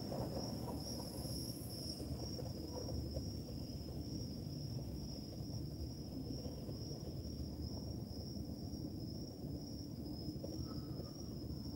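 Crickets trilling steadily, one high unbroken note, over a low rumble.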